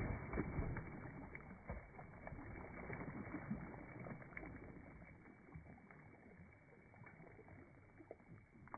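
Water sloshing against the hull of a small fishing boat on a river, with scattered light knocks, growing quieter over the last few seconds.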